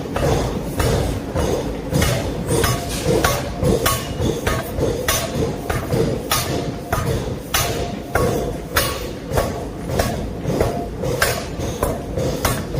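Hammer blows on metal in forging, a steady run of sharp strikes about two a second, over a continuous low rumble.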